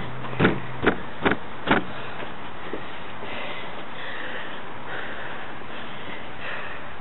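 Four footsteps thudding on a wooden deck, about half a second apart, over the steady hiss of falling rain.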